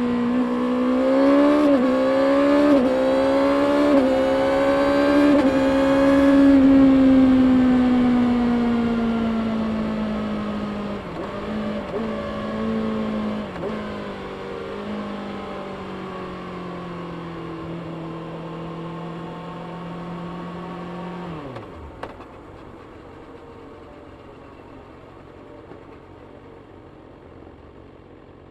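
Stock 2024 Kawasaki Ninja ZX-6R's 636 cc inline-four accelerating through three or four quick upshifts, the note climbing and dropping back at each shift. It then falls slowly as the bike slows, with a few brief dips in pitch, holds a steady note, and drops off sharply about twenty-two seconds in to a much quieter, lower sound.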